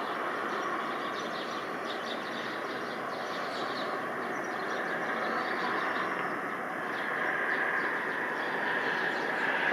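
Jet airliner engines running with a steady rush that grows louder about two-thirds of the way through.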